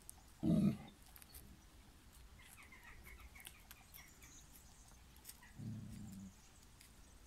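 A Spanish mastiff gives one deep, loud bark about half a second in, then a lower, quieter woof about six seconds in.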